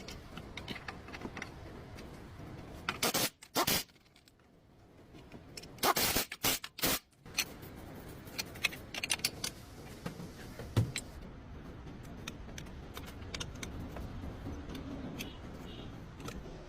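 Metal tools and parts clinking and scraping, with short loud scraping bursts about three and six seconds in and a sharp knock near eleven seconds, over a low steady hum.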